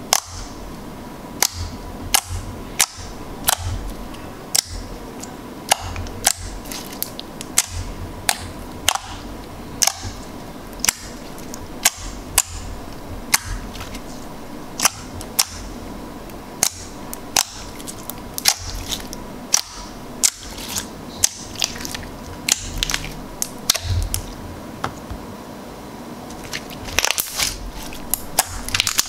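Glossy black glitter slime being pressed and poked by hand, giving sharp popping clicks as air pockets burst, about one or two a second. Near the end the pops crowd together into a crackling as the slime is pulled and folded.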